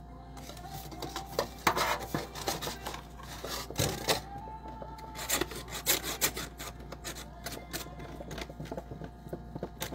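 Thin plastic clamshell container crinkling and scraping as cut fruit is tipped and shaken out of it into a blender cup, a run of irregular clicks and rubbing noises.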